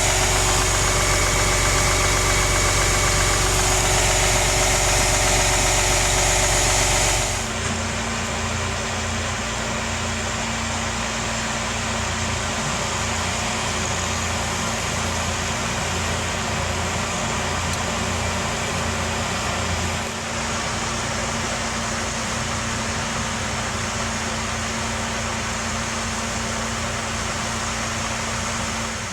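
Steady engine drone of a running vehicle or machine, with a steady low hum. About seven seconds in the sound changes abruptly to a duller, lower drone.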